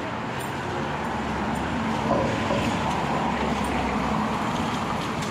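Street traffic noise: a vehicle passing, louder from about two seconds in.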